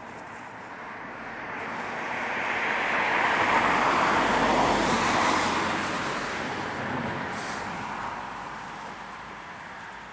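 A passing vehicle: a steady noise that swells to its loudest about four to five seconds in, then slowly fades away.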